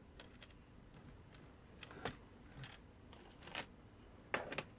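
Faint, scattered light clicks and taps of small plastic toy parts being handled on a work surface. There are a handful of separate ticks over the last three seconds, with a quick double tap near the end.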